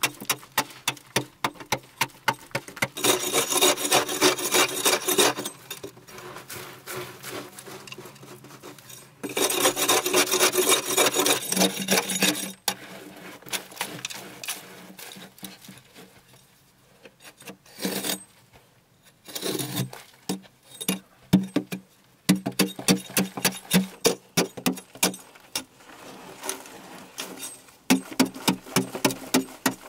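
A hand digging tool scraping and chipping at a hard earth wall in repeated strokes, about two a second, with two stretches of fast continuous scraping early on and a quieter patch past the middle.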